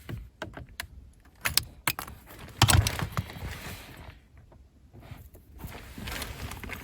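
Small clicks, knocks and rattles of hands and a fuse being worked loose from a Nissan Primera's fuse box, with a louder knock about two and a half seconds in.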